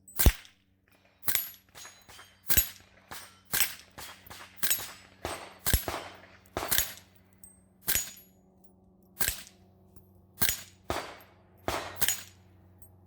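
A .22 LR firearm fitted with a home-built QuietBore Form 1 suppressor, firing Federal AutoMatch supersonic 40-grain rounds: about fifteen sharp cracks, each with a short ringing tail, spaced about a second apart and sometimes in quicker pairs.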